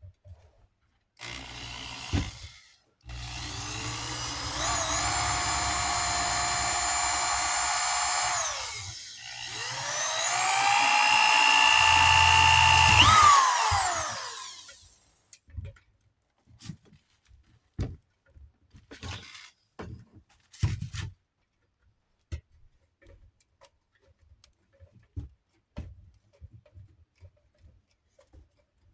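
Power drill drilling a screw hole. A short burst comes first, then the motor whine spins up, holds steady for about five seconds and winds down. It then runs again, rising in pitch for a few seconds before winding down. Light clicks of handling follow.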